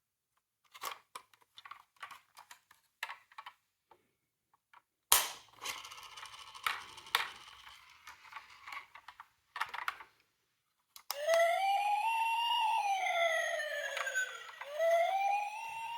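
A toy emergency vehicle's electronic siren wailing, gliding slowly up and down in pitch through its small speaker. Before it comes on, plastic toy cars give off light clicks and then a sharp click and a few seconds of scraping.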